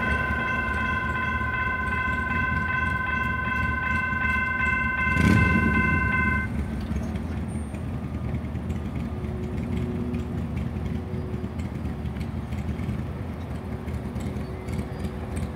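ASC electronic railroad crossing bells ringing in a steady pulsing pattern, then cutting off about six and a half seconds in as the gates start to rise, the sign that the crossing is clearing after the train has passed. A brief whoosh comes about five seconds in, and a low street-traffic rumble runs underneath.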